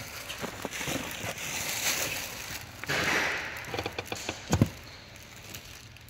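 Foot-operated parking brake being applied after its cable was adjusted: rustling as the foot moves onto the pedal, then a few ratchet clicks and a knock about four and a half seconds in as the pedal goes down.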